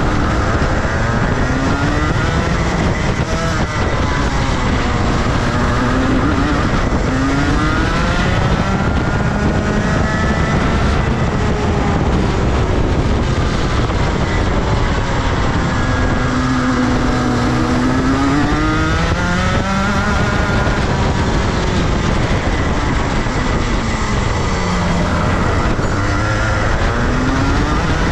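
Rotax Max Senior kart's 125 cc single-cylinder two-stroke engine running hard on track, its pitch climbing and dropping again and again every few seconds.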